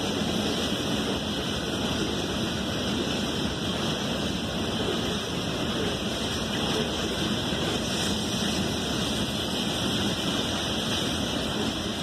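CSX freight train cars rolling past close by: a steady, even noise of wheels running on the rails, with no horn or single impacts.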